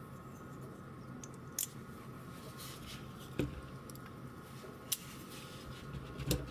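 Folding knives being handled: four sharp clicks spread through a few seconds, with a few fainter ticks between.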